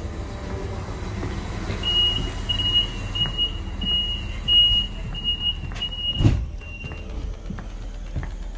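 Passenger train door warning signal: a high beep repeated about eight times, roughly one and a half a second, the last one fainter, over the low rumble of the carriage. A single thump comes about six seconds in.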